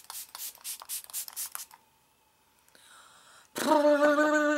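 A face-mist spray bottle pumped several times in quick succession, short hissing sprays about four or five a second. Near the end comes the loudest sound: a woman's voice holding one long steady note for about a second.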